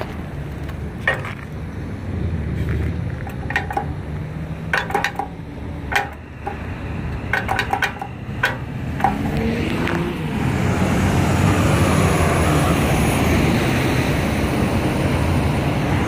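A Novax DS100 pedestrian push button pressed about a dozen times in irregular quick taps, each press a sharp click. The button is dead, so there is no beep or voice in answer. From about ten seconds in, a vehicle drives past on the road.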